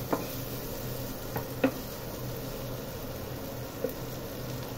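A wooden spatula stirring thick fried masala in a nonstick frying pan, knocking against the pan a few times, over a soft frying sizzle and a steady low hum from the induction cooktop.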